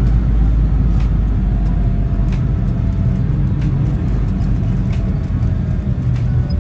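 Steady low engine and road rumble heard inside the cabin of a moving pickup.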